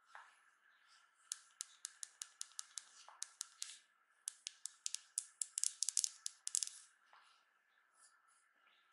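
Sharp clicks and taps from a plastic-backed Samsung Galaxy A52 smartphone being handled in gloved hands, about five a second in two quick runs. The second run is louder and denser.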